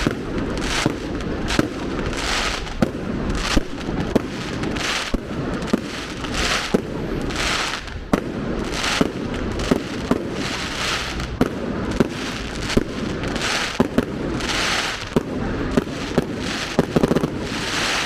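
A fireworks barrage going off without a break: sharp bangs about once every half second to second, each followed by a crackling hiss.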